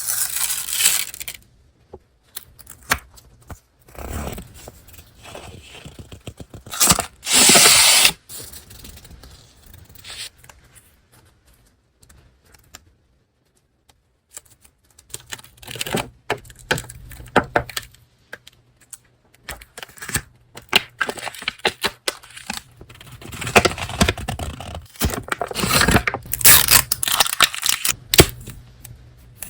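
Paper and packaging being handled close up: rustling, crinkling and tearing in uneven bursts with short pauses. The loudest stretch comes about seven seconds in.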